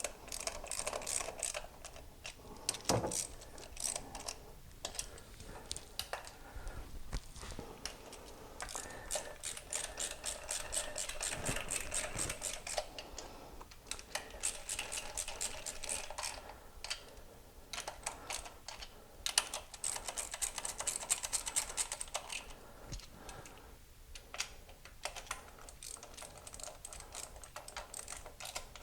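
Hand ratchet clicking in quick runs as the intake manifold bolts are run down snug, with short pauses between runs.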